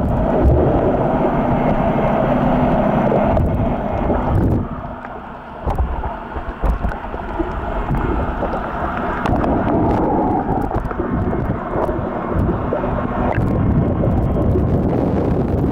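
Muffled rushing and bubbling of water heard through an underwater camera's housing as a snorkeler swims, dipping briefly about five seconds in.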